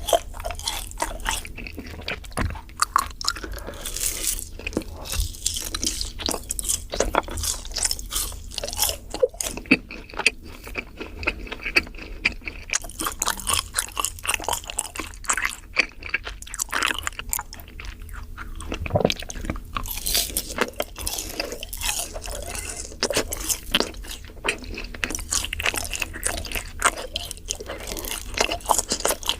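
Yakgwa, Korean fried honey cookies, being bitten and chewed, with irregular crunches throughout.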